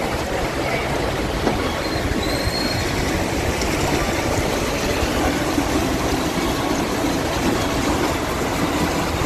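Fast-flowing floodwater rushing past, a loud, steady rush of water.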